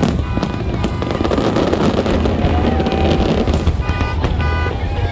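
Fireworks going off in quick succession, sharp bangs with a dense crackle of many small bursts through the middle.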